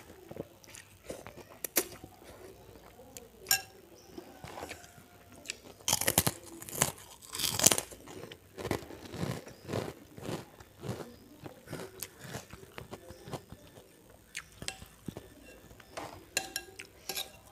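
Close-miked mouth sounds of a person eating soto ayam Lamongan noodle soup: slurping noodles and chewing, with irregular wet smacks and clicks, loudest about six to eight seconds in.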